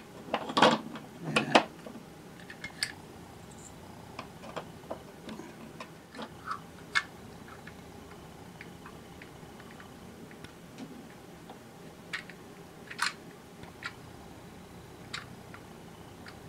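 Scattered sharp clicks and light knocks of small plastic gears and a plastic gearbox housing being handled and fitted together. The loudest cluster falls in the first two seconds, then isolated ticks follow.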